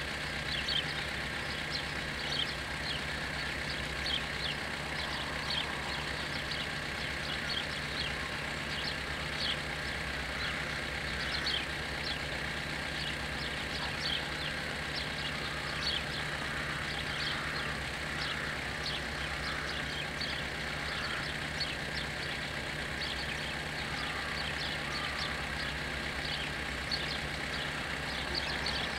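Level-crossing warning bells ringing with barriers down: a steady, evenly repeated series of short high strikes over a low steady hum.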